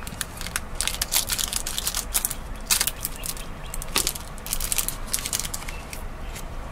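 Small plastic zip-top bag crinkling as it is handled and opened, with Pi Duo beads clicking against each other as they are tipped out into a hand: a run of irregular sharp crackles and clicks.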